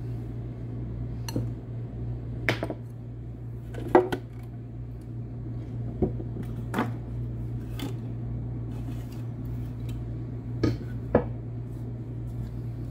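Kitchen items being picked up and set down on a hard countertop: scattered knocks and clinks, about eight in all, the loudest about four seconds in, over a steady low hum.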